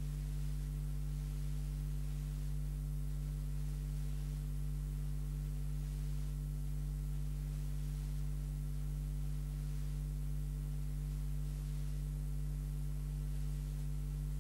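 A steady low hum of several unchanging tones, with no change in level.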